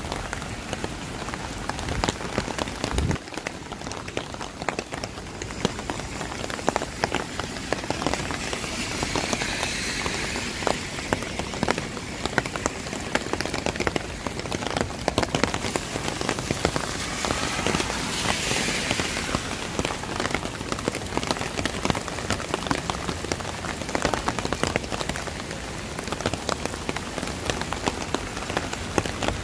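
Steady heavy rain, with dense close drops ticking on hard surfaces. A louder hiss swells briefly twice, around ten and eighteen seconds in.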